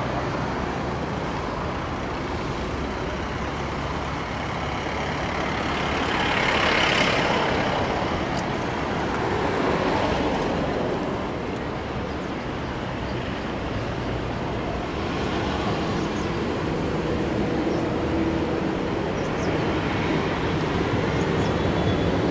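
Steady highway traffic noise from vehicles passing at speed, swelling as heavier vehicles go by about seven and ten seconds in.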